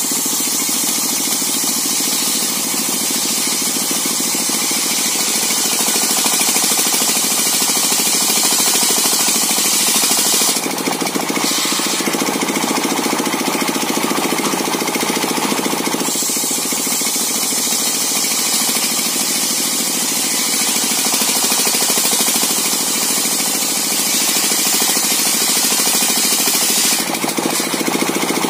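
Circular saw machine running and ripping coconut wood: a steady, loud mechanical noise, its sound shifting briefly about 11 seconds in, again around 16 seconds, and near the end.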